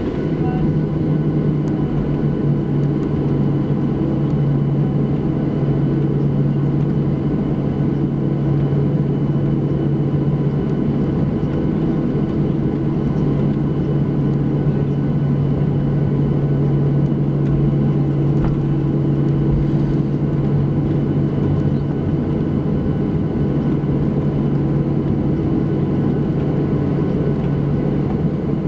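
Cabin noise inside a Boeing 737-700 airliner: a steady low drone with a strong hum and a few fainter steady tones, holding level with no rise or fall in pitch.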